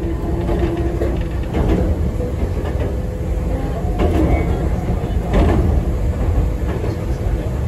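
Enoden electric train running, heard from inside the driver's cab: a steady low rumble of motors and wheels on the rails, with a few knocks from the track.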